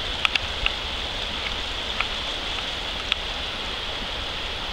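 Shallow river rapids rushing steadily over rocks, with a handful of short sharp clicks scattered through.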